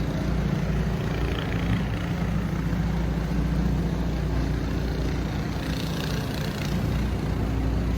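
A motor vehicle's engine running steadily, a low, even hum over the general noise of a city street.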